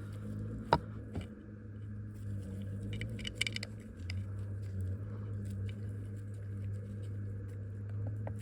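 Scattered metallic clicks and light scraping as Allen bolts are worked by hand into the rotator's hydraulic motor, over a steady low hum. The sharpest click comes just under a second in, and a quick run of clicks follows around the middle.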